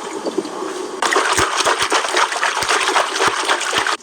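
Water gushing and splashing, getting louder about a second in with scattered sharp splashes, then cutting off suddenly.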